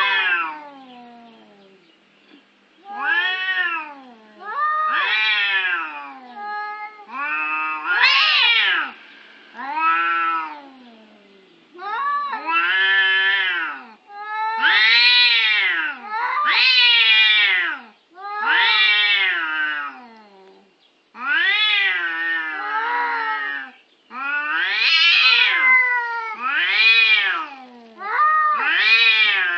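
Domestic cats yowling at each other in a territorial standoff: long drawn-out caterwauls that rise and fall in pitch, one after another every second or two. At times two voices overlap.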